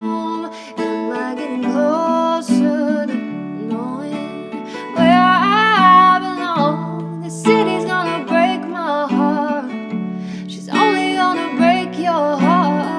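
Acoustic guitar strummed and plucked, with a woman singing over it in long, wavering notes.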